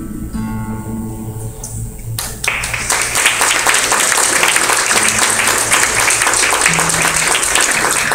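The last chord of an acoustic guitar ringing out, then an audience applauding from about two seconds in, the clapping going on steadily after.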